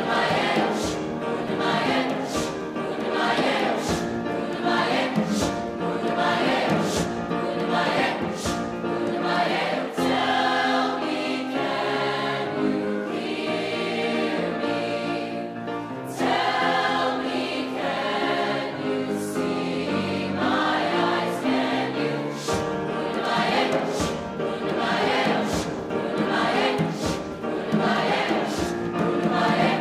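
Mixed youth choir singing in parts, accompanied by grand piano and a djembe beating a steady rhythm.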